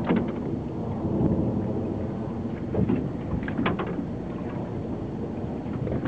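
Steady low rumble of wind and water out on open sea, with a few short crackles, a cluster of them about three and a half seconds in.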